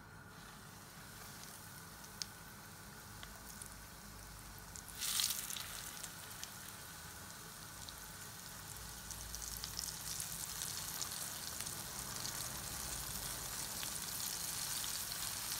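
Flour-coated chicken pieces sizzling in hot coconut oil in a frying pan as they are laid in. The frying flares up sharply about five seconds in as another piece goes in, and the sizzle grows steadily louder as more pieces are added.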